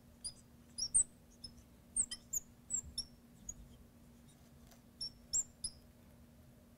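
Marker squeaking on a glass lightboard as words are written: a string of short, high squeaks and chirps in quick groups, with a pause of about a second and a half before a last few squeaks.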